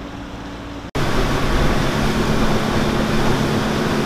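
Twin 225 hp outboard motors idling steadily; after a sudden cut about a second in, they are running at speed under a loud rush of wind and water.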